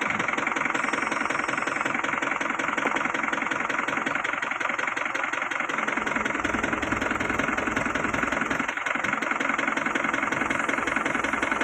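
Heavy diesel engine running steadily at idle with a fast, even clatter; its low rumble grows stronger about halfway through.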